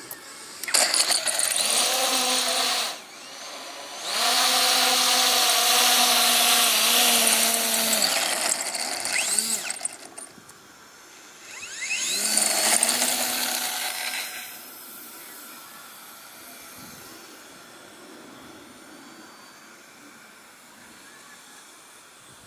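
Electric motor and propeller of a small RC aerobatic plane, its BLHeli ESC set to two-way (reverse-thrust) mode, throttled up three times with a steady whine. About twelve seconds in the pitch rises as it spins up. After that only a faint, steady sound remains.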